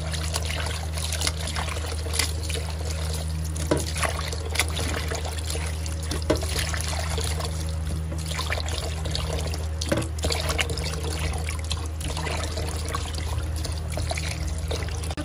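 Tap water running into a bowl of salted napa cabbage, splashing as a hand swishes the leaves to rinse off the salt. A steady low hum sits underneath.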